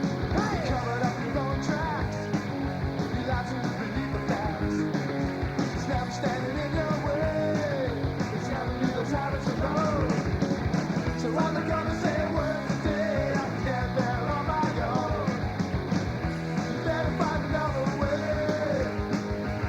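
Rock music with a steady beat and a lead melody that slides up and down in pitch.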